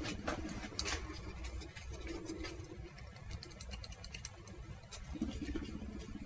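Screwdriver working the small brass terminal screw of a plug coupling: faint small metallic clicks, with a quick run of about ten clicks a second a little past the middle. He is tightening it to see whether the screw draws in and clamps the loose contact tongue.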